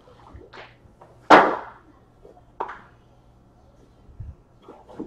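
Trading-card packs and wrappers being handled: a few short crinkly swishes, the loudest about a second and a half in, then soft low thumps near the end.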